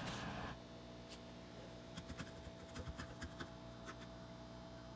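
Faint light taps and scrapes of a paintbrush in a paper cup of paint, with paint bottles handled on the table, scattered mostly through the middle, over a low steady hum.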